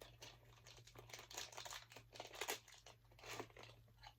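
Faint crinkling and rustling of plastic packaging being handled, in irregular bursts, over a steady low electrical hum.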